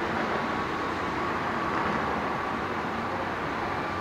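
Steady drone and hiss of a police helicopter's cabin heard through its intercom audio, with a faint steady high tone and no sudden events.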